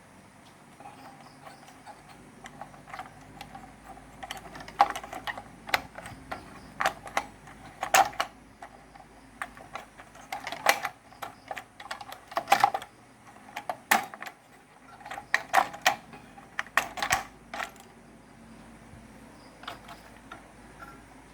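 Irregular sharp clicks and taps of hands handling and fitting PC parts on a motherboard. This is most likely the plastic clips and slots as memory is seated. The clicks come in clusters through the middle of the stretch, with quieter gaps before and after.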